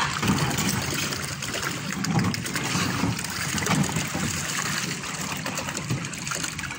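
Water churning and splashing steadily, stirred by the plastic side paddle wheels of children's small paddle boats.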